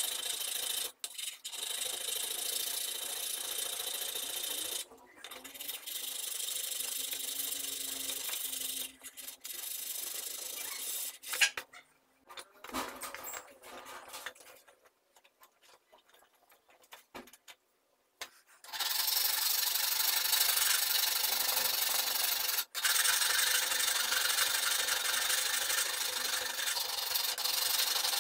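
Hand file scraping back and forth across the steel of a chisel clamped in a vise. The filing stops for several seconds near the middle, with a few clicks, then starts again and runs on steadily.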